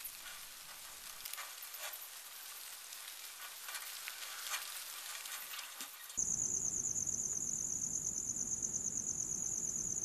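Faint crackling and rustling in dry leaf litter where Christmas Island red crabs are shifting about, with small irregular clicks. About six seconds in it switches suddenly to insects chirring: a steady, pulsing high-pitched trill.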